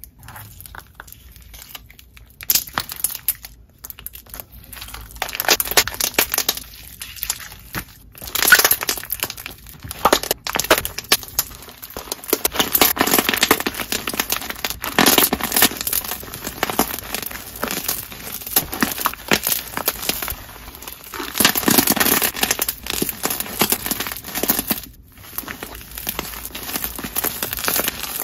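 Thick semifloam slime, slime with foam beads mixed in, being pressed, squeezed and kneaded by hand, giving dense crunching and crackling. The crackling comes in spells with a few short breaks, about four, eight and twenty-five seconds in.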